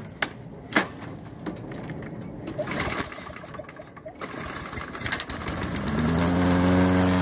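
A Toro Recycler push mower's Briggs & Stratton 190cc single-cylinder engine is pull-started cold on fresh oil. After two sharp clicks and some rattling of the handle and cord, the engine sputters into life about five to six seconds in, then settles into a steady idle.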